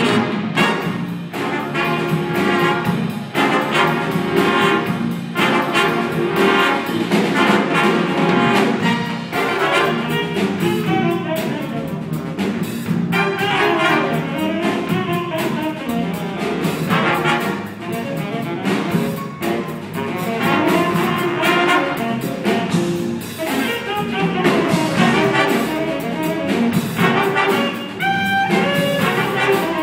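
Big band playing an up-tempo jazz tune live: saxophones, trumpets and trombones over piano and drum kit.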